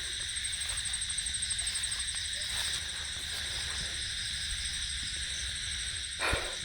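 Insects in the orchard chirring in a steady, evenly pulsing high trill over a low rumble, with one brief sharp sound near the end.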